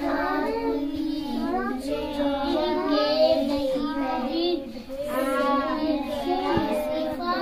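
A child's voice singing a melody without a break, with held notes.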